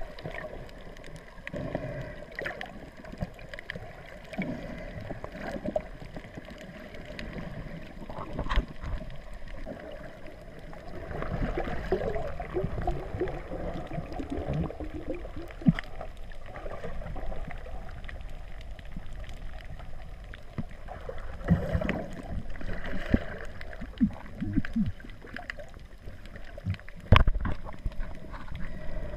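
Underwater water noise picked up through a GoPro's waterproof housing: irregular gurgling and sloshing, with a few sharp knocks, the loudest near the end.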